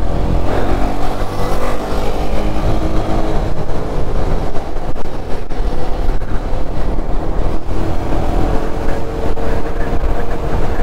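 Motorcycle engine running steadily while riding at road speed, with heavy wind rush over the helmet-mounted microphone.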